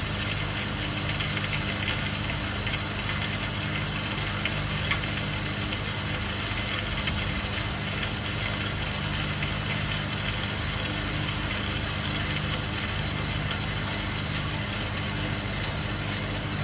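Motorised drive units turning hand coffee grinders at 144 RPM, grinding 20 g of medium-roast beans: a steady motor hum with a gritty crackle of beans being crushed in the burrs.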